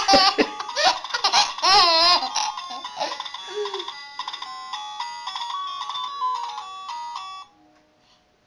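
A baby laughing loudly for the first two seconds or so, then an electronic toy tune of short stepped beeping notes that stops about seven and a half seconds in.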